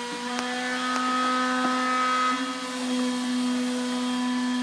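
Steady machine hum, like a running electric motor, holding one pitch with a few faint clicks over it.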